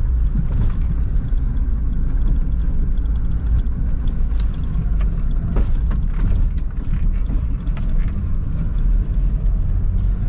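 Lada Niva 4x4 driving over a bumpy dirt road, heard inside the closed cabin: a steady low engine and road rumble with scattered knocks and rattles from the bumps. The driver's seat, freshly greased with Litol, does not squeak.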